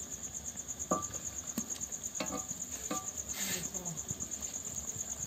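Crickets chirping in a steady, rapidly pulsing trill, with a few light knocks and a short scrape from a spatula stirring curry in a kadai.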